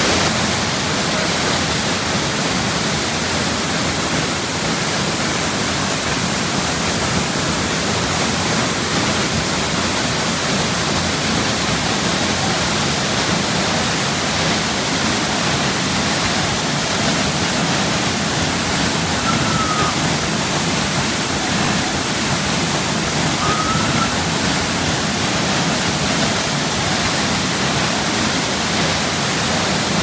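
A waterfall in full flow, swollen with snowmelt, gives a steady, loud rush of falling water. Two faint short chirps come through about two-thirds of the way in.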